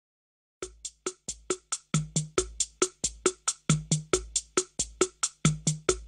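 Music: a drum-machine beat of short, sharp hits, about four or five a second, with deeper bass hits under many of them, starting after about half a second of silence.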